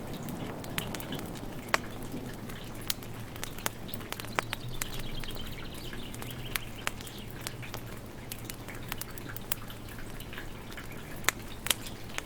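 Wood fire crackling in a fireplace, with sharp, irregular pops over a soft, steady hiss of rain.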